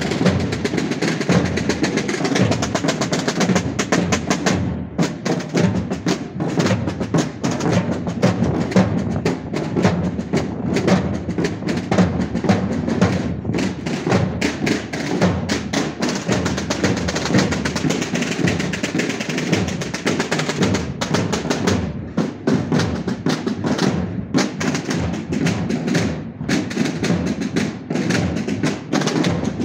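Processional drum band of cloth-draped drums, bass drums among them beaten with mallets, playing a continuous marching beat.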